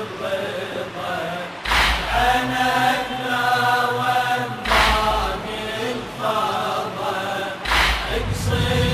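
Slow Shia devotional chant: drawn-out sung vocal lines in Arabic, with a deep thump about every three seconds keeping the beat.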